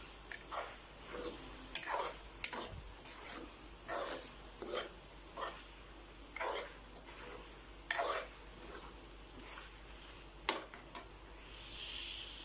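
A metal spoon scraping and knocking against a metal karahi as a chicken and onion masala is stirred, in irregular strokes about once or twice a second, over a faint sizzle of frying. The sizzle grows louder near the end.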